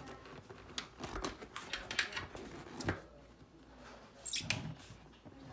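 Scattered small clicks, taps and rubbing from hands working at a fat bike wheel's rim to get the inner tube's valve stem out, with a brief brighter scrape about four seconds in.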